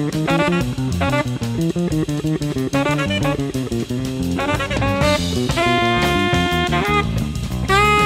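Late-1970s jazz-fusion band recording: drum kit and bass keep a steady groove under quick melodic runs. About two-thirds of the way in a lead line holds a long note, and another held note starts near the end.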